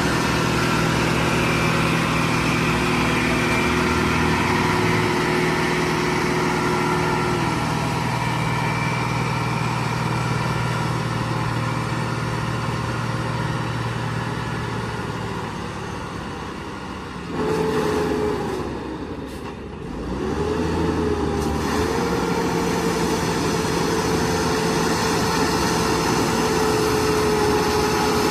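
Engines of heavy road-construction machinery running steadily. About two-thirds of the way in the sound changes abruptly; an engine note then dips and climbs again before holding steady.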